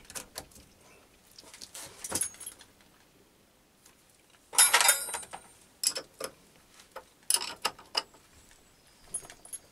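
Metal clicking and clattering as a steel tool holder and toolpost are handled and set on a mini lathe, then a spanner is worked on the toolpost nut. The loudest burst of clatter comes a little before halfway, with another about three-quarters through.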